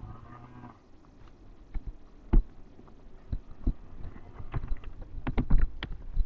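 A person's snore, a short low pitched drone at the start, followed by a run of irregular sharp clicks and knocks. The loudest knocks come about two seconds in and a cluster near the end.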